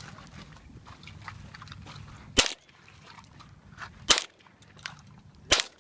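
.22 rifle fired three times, sharp cracks about a second and a half apart.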